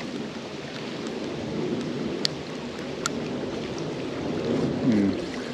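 Small river flowing steadily, an even rush of moving water, with two sharp clicks a little under a second apart just over two seconds in.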